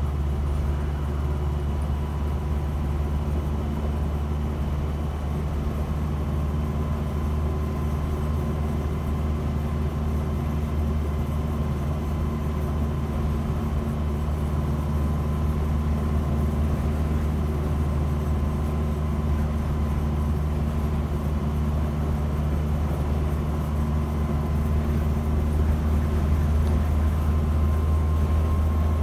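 Land Rover Series 3 109's 2.25-litre four-cylinder petrol engine running as the truck drives along, a steady low drone with a faint steady whine above it; it grows a little louder near the end.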